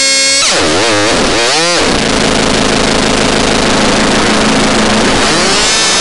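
Synthesized chainsaw sound effect. An electronic buzz dips and swoops in pitch twice, then turns into a harsh, noisy rasp over a low hum for a few seconds, and the pitched buzz comes back, rising, near the end.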